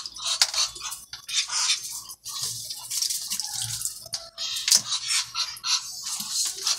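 Muscovy duck dabbling in a plastic basin of water, making irregular splashes and drips as it dips and shakes its head.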